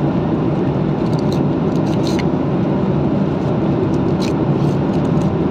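Steady cabin noise of a passenger aircraft in flight, an even drone of engine and airflow, with a couple of faint light ticks.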